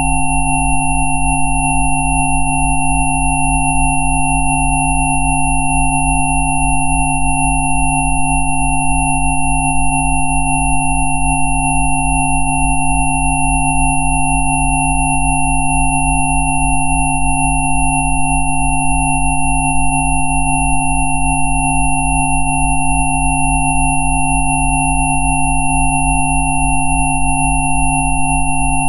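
Several electronically generated sine tones sounding together, the 'Rife frequencies' of the track: a thin high tone, a middle cluster and low tones, with the lowest one pulsing quickly. The tones are steady and never change in pitch or loudness.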